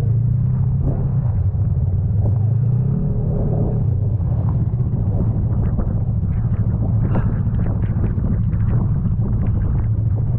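Yamaha snowmobile engine idling steadily, its pitch rising briefly about three seconds in as it is given a little throttle.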